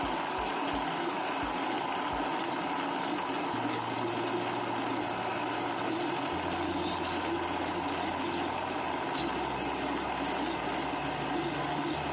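Countertop blender running, crushing ice into a red blended drink: a steady grinding motor noise, with a few low knocks in the first two seconds.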